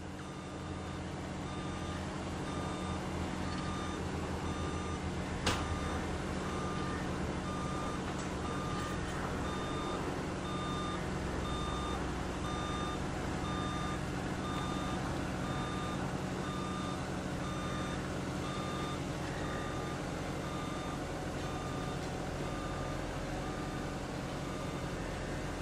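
Vehicle backup alarm beeping steadily, about three beeps every two seconds, over a heavy engine running steadily. There is one sharp knock about five and a half seconds in.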